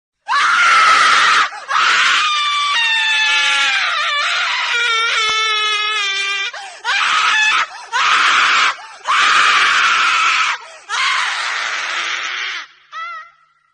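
A woman screaming: about seven harsh, loud screams with short breaks between them. The second scream is long and wavers in pitch for several seconds, and a short one comes near the end.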